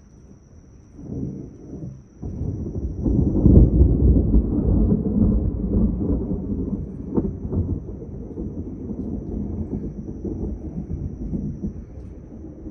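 Thunder: a short rumble about a second in, then a long rolling peal that swells to its loudest a few seconds in and slowly dies away. Crickets keep up a steady high chirring over it.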